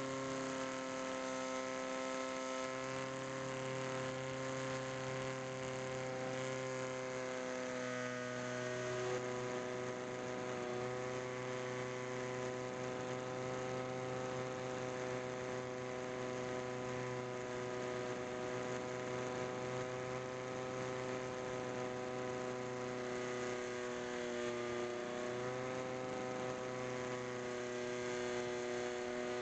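Electric motor and pusher propeller of a HobbyKing Bix3 RC plane in flight, a steady whine holding nearly one pitch, over wind noise on the onboard microphone. The pitch dips briefly near the end.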